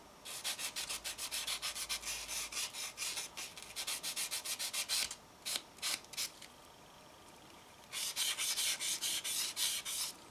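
Sanding stick rubbed in quick back-and-forth strokes over a small plastic model kit part, smoothing off the nubs left where it was cut from the sprue. The strokes thin out to a few single ones past the middle, then run on rapidly again.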